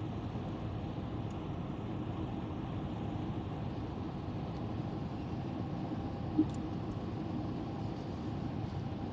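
Steady road and engine noise of a Sprinter cargo van driving at highway speed, heard inside the cab. A single brief click comes about six seconds in.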